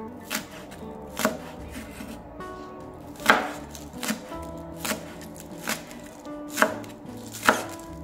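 Kitchen knife chopping spring onions on a bamboo cutting board: about eight separate sharp knocks of the blade cutting through the stalks onto the board, roughly one a second, the loudest a little over three seconds in.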